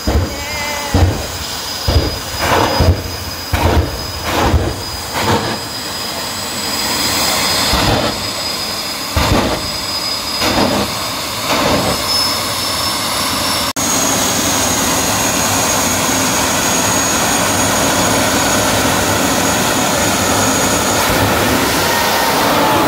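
Two jet dragsters' turbine engines at the start line. First comes a run of short loud blasts, about one or two a second, then steady, loud jet engine noise with a high whine as the cars launch under afterburner, with a falling pitch near the end.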